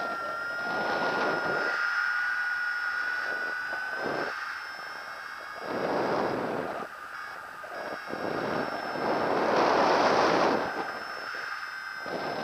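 Wind from flight under a paraglider rushing over the microphone. It swells in gusts about a second in, around six seconds, and most strongly near ten seconds, over a thin steady high whine.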